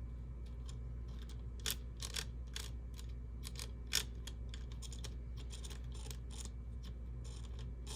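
Light, irregular clicks and taps of small airsoft gearbox parts being handled and set into the gearbox shell, over a steady low hum.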